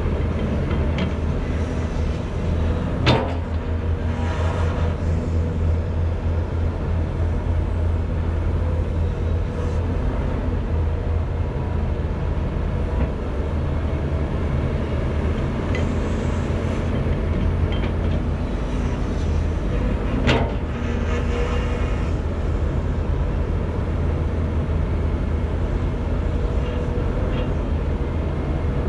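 Volvo EC210B LC crawler excavator's diesel engine running steadily under hydraulic load while digging and swinging. Two sharp knocks stand out, about three seconds in and again about twenty seconds in, with stretches of rattling soil between.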